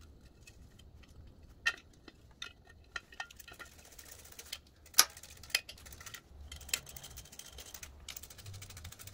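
Light metal clicks and taps as a stamped steel valve cover is set onto a Briggs & Stratton OHV engine head and its bolts are handled and started by hand. The sharpest click comes about five seconds in, with quick faint ticks near the end.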